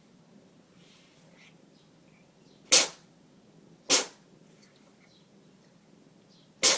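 A dog sneezing: three short, sharp sneezes, the first two about a second apart and the third near the end.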